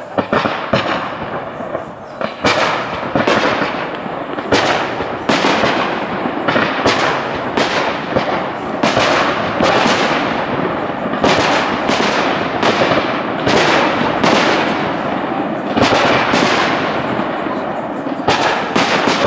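Fireworks display: aerial shells bursting in a rapid run of sharp bangs, about two a second, over a continuous crackling wash.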